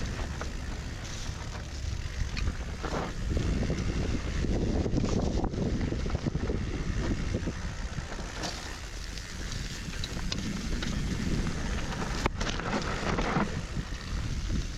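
Wind buffeting the helmet or bike microphone over the tyre noise of a downhill mountain bike rolling down a dirt trail, with scattered sharp clicks and knocks from the bike.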